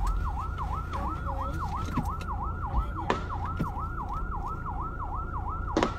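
Emergency vehicle siren in a fast yelp, sweeping up and down about three times a second, with sharp cracks of gunfire about three seconds in and again near the end.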